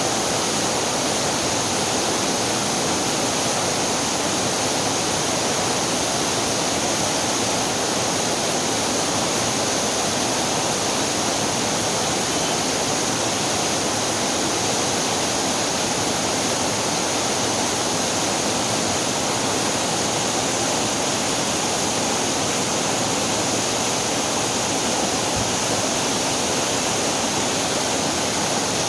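Steady rushing of water flowing over a small waterfall and down a stream, an even roar with no pauses.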